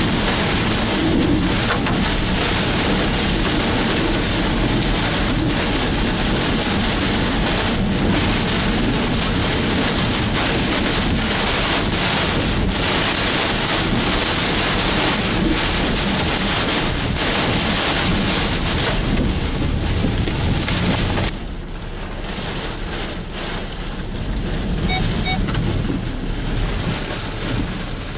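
Heavy wind-driven rain hitting a vehicle's windshield and roof, heard from inside the car as a dense, steady hiss. About three quarters of the way through it drops suddenly to quieter rain.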